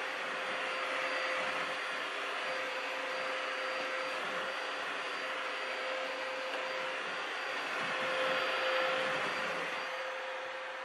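Bissell Hard Floor Expert vacuum cleaner with its 6-amp motor running steadily, a steady rushing sound with a constant whine, swelling slightly about eight seconds in.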